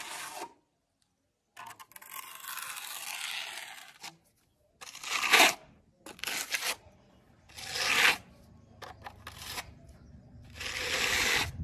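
Steel trowel scraping across wet concrete as it is smoothed: about five separate strokes with short pauses between, the longest starting about two seconds in and lasting around two seconds.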